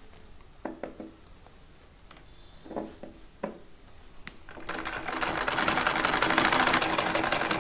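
Black domestic sewing machine starting up about two-thirds of the way in and stitching at speed, a fast, even clatter of needle strokes. Before it starts, a few light knocks as the fabric is positioned under the foot.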